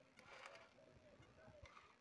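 Near silence: faint room tone, with a soft brief rustle a moment in as food is handled by hand.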